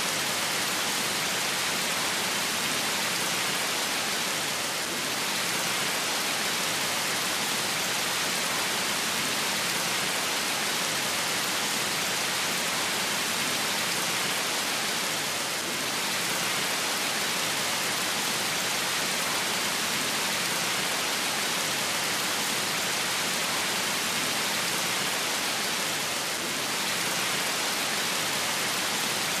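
Steady rush and splash of water falling from a small artificial waterfall onto stones and into a pool, with slight dips in level about every eleven seconds.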